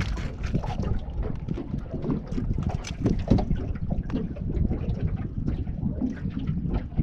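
Wind buffeting the microphone in an uneven low rumble, with frequent small knocks and taps and some water sound from a small boat on the water.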